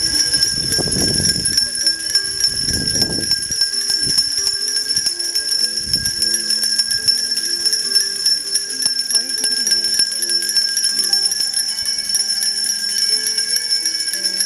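Many bells rung together by a crowd, a steady, continuous jangle of ringing, with voices murmuring underneath.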